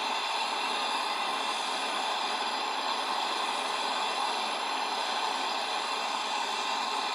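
MAP gas torch flame hissing steadily while brazing a recharge valve onto a fridge's copper pipe.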